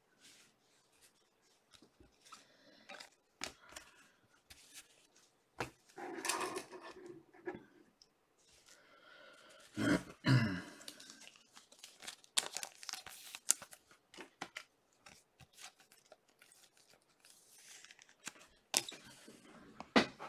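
Trading cards and their plastic sleeves and holders being handled on a table: rustling and sliding of cards, with scattered sharp clicks and taps, and a louder knock about ten seconds in.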